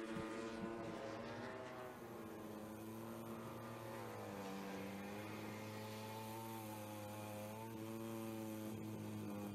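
MotoGP race bikes' engines on the race feed, running at high revs. The pitch drops and climbs again about four seconds in, and rises once more near the end, as the bikes brake and accelerate through the corners.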